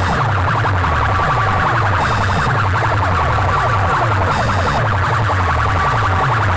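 Loud, heavily bass-driven DJ competition track with a siren-like wailing sample over a constantly pulsing bass line, and a hissing hit about every two seconds.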